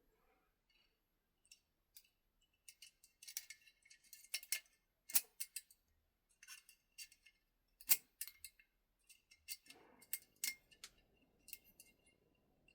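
Lock picks and a tension wrench working inside a Tri-Circle shutter lock: irregular small metallic clicks and scrapes as the pins are set against its spring-loaded core, with a few sharper clicks about 5 and 8 seconds in.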